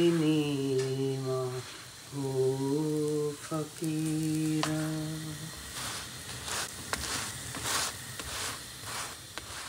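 A woman humming a slow tune in three long held phrases. After that, a paratha sizzles in oil in a frying pan, with a light clink of the spatula on the pan.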